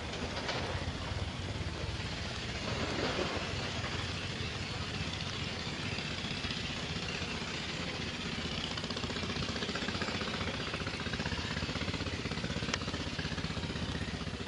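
A small engine running steadily, with a fast even pulse.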